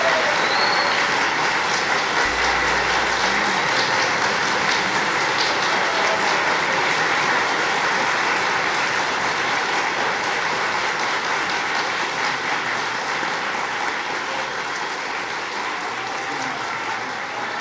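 Audience applauding at the end of a song, a steady dense clapping that slowly dies down.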